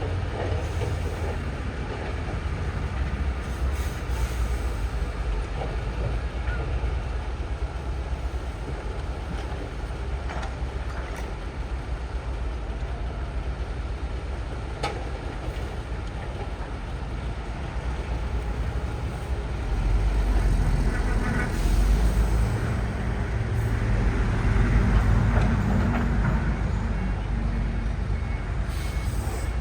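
Diesel engine of heavy earthmoving machinery running steadily with a low rumble. It grows louder for several seconds about two-thirds of the way through, as the machine works harder.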